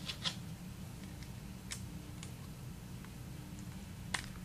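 A few small clicks of a 5/32 Allen wrench being fitted into the notch of a 1911's two-piece guide rod, the sharpest one near the end, over faint room hum.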